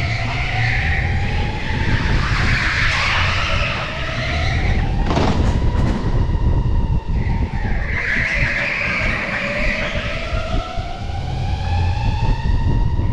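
Electric go-kart's motor whining, rising in pitch as the kart accelerates and dropping back as it slows for corners, with tyres squealing through the turns. One short knock about five seconds in.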